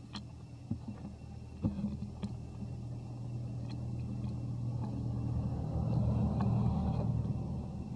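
Low rumble of a passing motor vehicle, swelling to its loudest about six to seven seconds in and then easing off, with a few faint clicks early on.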